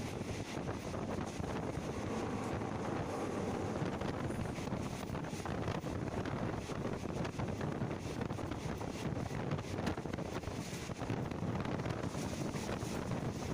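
Steady rushing noise of wind buffeting the microphone, even throughout with no distinct tones or knocks.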